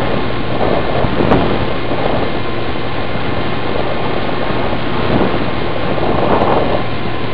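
Airflow rushing over the microphone of a FlycamOne camera carried on an RC Easy Star plane in flight: a steady, noisy roar that swells a little now and then, with a faint steady hum under it.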